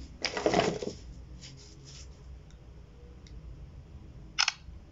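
Rustling handling noise for about the first second as the phone is moved, then a single short, sharp click about four and a half seconds in, fitting the Infinix Hot 10 smartphone's camera shutter as a photo is taken.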